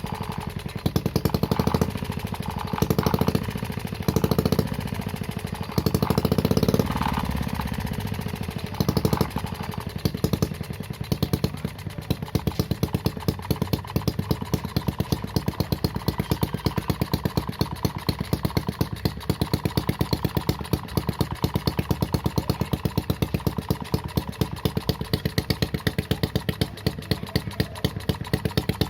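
Small homemade four-stroke mini engine fitted with a new exhaust, blipped about six times in the first ten seconds, then settling into a steady idle with distinct, evenly spaced exhaust pulses.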